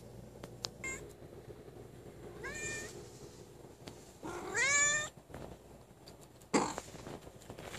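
Domestic cat meowing twice, each call rising in pitch: a short meow, then a longer, louder one about two seconds later. A sudden thump follows about two seconds after that.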